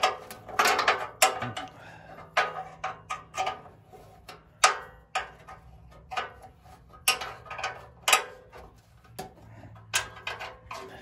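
Ratchet wrench clicking in short groups of strokes while tightening 9/16-inch nuts on a steel tractor bracket, with metal clinks between the strokes.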